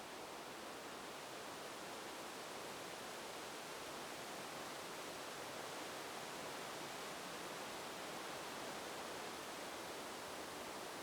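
Wind blowing steadily, with a rustle of leaves.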